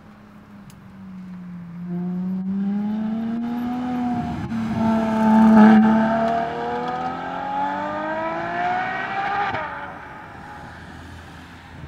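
Ferrari F12 TDF's V12 engine accelerating hard, revs climbing through the gears. There is a sharp drop in pitch at an upshift about four seconds in, then the revs rise again to the loudest point, with another upshift near the end of the pull before the sound fades as the car draws away.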